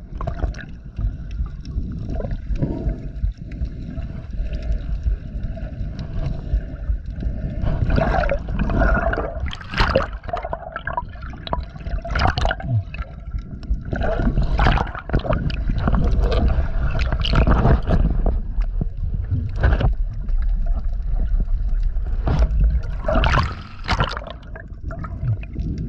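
Water sloshing, gurgling and bubbling around a chest-mounted action camera dipping at the surface as a snorkeler swims, over a constant low rumble, with irregular splashy surges every second or two.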